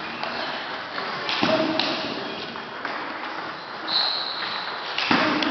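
Table tennis rally: the celluloid ball clicks off bats and table a few times, echoing in a large hall, with a brief high squeak about four seconds in and a louder knock near the end.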